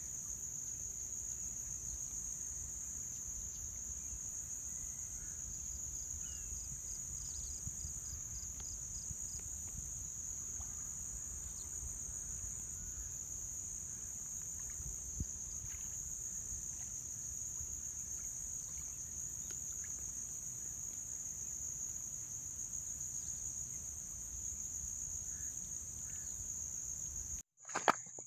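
Crickets trilling in one steady, unbroken high-pitched drone over a faint low rumble of wind. Near the end it cuts off abruptly and a short knock is heard.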